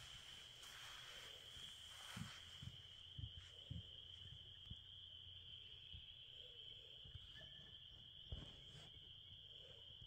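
Faint, steady high-pitched trilling of a spring frog chorus, with a few soft low knocks between two and four seconds in and another near eight seconds.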